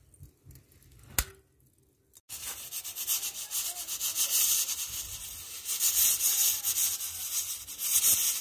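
Pressure cooker on a charcoal coal pot hissing: a rough, flickering hiss that cuts in suddenly about two seconds in and runs on, after a quiet start with a single click about a second in.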